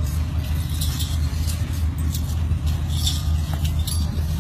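A steady low rumble, with light metallic jingling or clinking that comes and goes.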